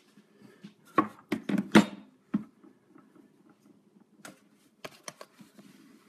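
Handling noise from a camera being repositioned: a cluster of loud knocks and rattles about a second in, then a few scattered lighter clicks.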